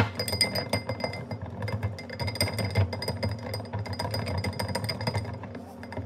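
Silicone-coated balloon whisk beating fast against the sides of a glass bowl: a quick, irregular clatter of taps and clicks as an instant coffee and sugar mixture is whipped into dalgona coffee.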